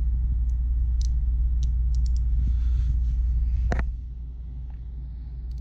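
A steady low rumble, which drops away about four seconds in, with a few scattered light metallic clicks from a Matco quarter-inch indexable ratchet being turned over in the hand. The sharpest click comes just before the rumble drops.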